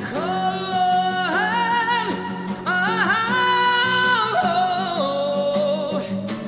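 A man singing long held, high notes with vibrato, belted near the middle, over a strummed acoustic guitar.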